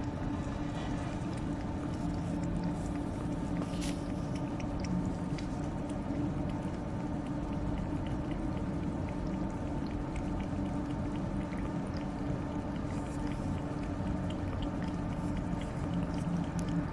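A cat eating wet food from an open tin can: wet chewing and licking with small clicks, over a steady low hum.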